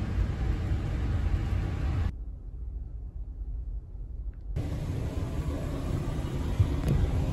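Low steady rumble aboard the ferry Sunflower Kirishima under way: wind on the microphone and ship noise on the open deck. About two seconds in it cuts to a much quieter indoor hum, and the rumble returns a couple of seconds later.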